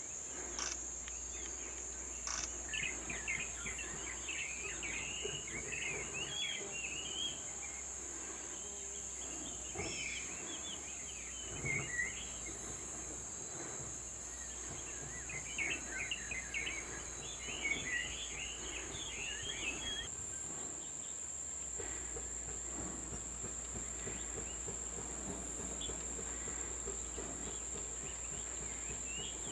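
Steady, high-pitched insect drone, with stretches of quick, twittering calls from small birds lasting several seconds at a time.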